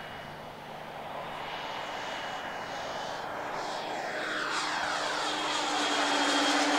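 Two large radio-controlled Embraer EMB 312 Tucano scale model aircraft flying in formation: their engines and propellers make a steady high whine that grows steadily louder as the models approach.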